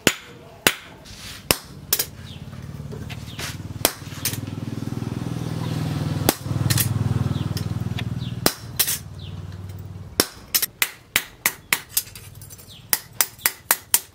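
Hand hammer striking a hot disc-brake steel blade on a steel post anvil while it is forged into a knife: scattered blows at first, then a quick run of ringing blows, about three a second, in the last few seconds. In the middle a low drone swells and fades away.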